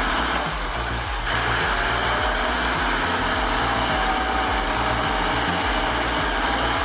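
Belarus MTZ-1221 tractor's engine running under background music with a pulsing bass line.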